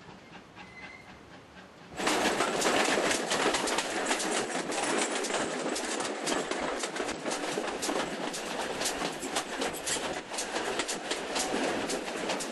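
Heritage steam train running at speed, heard from an open carriage window just behind the locomotive: a loud, dense clatter of wheels on the rails with a steady rush of noise. It begins abruptly about two seconds in, after faint quiet station ambience.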